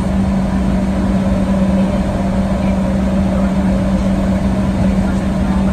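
Steady cabin noise of a Boeing 737-800 taxiing, its CFM56-7B engines running at idle, with a strong, constant low hum.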